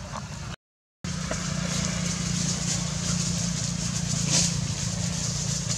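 Steady outdoor background noise, a low hum under an even hiss with a few faint rustling clicks, cutting out completely for about half a second shortly after the start.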